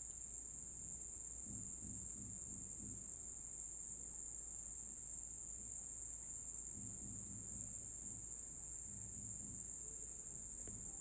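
Crickets trilling, a steady unbroken high-pitched sound.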